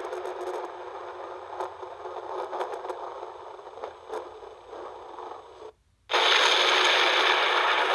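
Thunder sound effect: a crackling rumble that slowly fades. After a brief cut to silence, about six seconds in, a louder, hissing storm recording starts.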